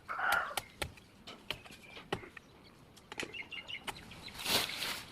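A chicken clucking near the start, with scattered sharp knocks and clicks throughout and a short rush of noise about four and a half seconds in.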